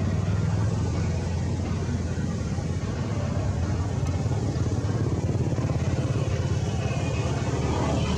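A motor vehicle's engine running steadily, a continuous low rumble.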